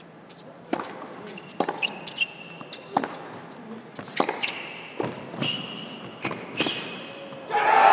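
Tennis rally on an indoor hard court: a string of sharp racket strikes and ball bounces every half second to a second, with short high shoe squeaks after several of them. Crowd applause breaks out near the end as the point finishes.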